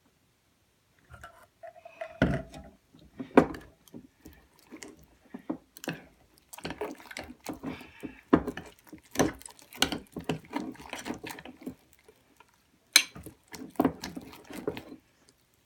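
Sticky glue-and-borax slime being stirred and worked, making irregular wet squishes and clicks that start about a second in; the mixture is still sticky, not yet set.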